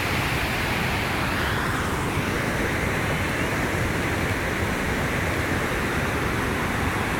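Carpathian mountain-river waterfall: a steady, even roar of falling and rushing water, very noisy.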